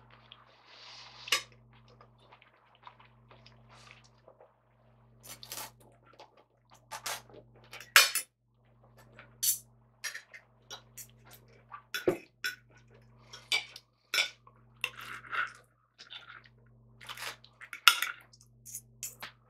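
Knife and fork clinking and scraping against a plate while cutting up a fried breakfast, in irregular sharp clicks.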